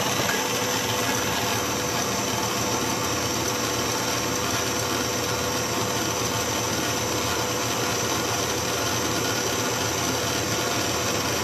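KitchenAid stand mixer running steadily at low speed, its motor humming and the wire whisk beating egg whites, while hot sugar syrup is streamed in for Italian meringue.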